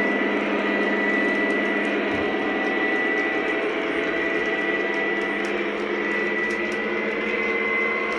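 Lionel O-gauge model train running steadily on FasTrack: a continuous rumble of wheels on track with a steady hum as the last reefer and caboose roll past and the train carries on around the layout.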